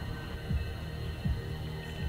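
Background music: a low thudding beat, about one beat every three quarters of a second, over sustained held tones.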